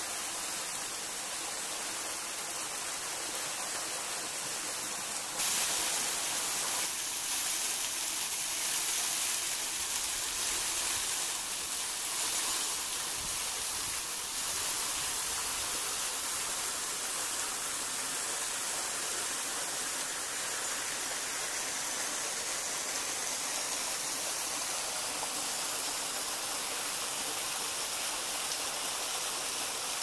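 Steady rush of a small waterfall's water falling and splashing down a rock face, stepping up in loudness about five seconds in.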